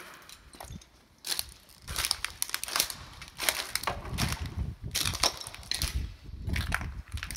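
Footsteps crunching over broken glass and rubble, a crisp crunch with each step, about one a second. Dull low thumps join in from about four seconds in.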